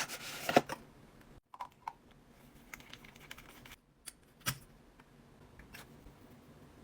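Sparse small clicks and taps of small objects being handled, after a short burst of rustling at the start; the loudest tap comes about four and a half seconds in.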